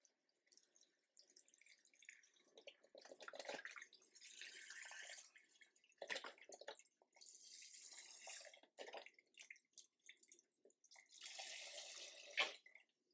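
Chicken broth poured from a carton into a pot of beans, sausage and chopped vegetables, splashing in three main pours with short pauses between.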